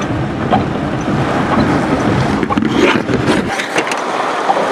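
Vehicle backing up on a soft gravel road, heard as steady road and engine rumble with a few clicks and knocks near the middle; the low rumble drops away suddenly about three and a half seconds in.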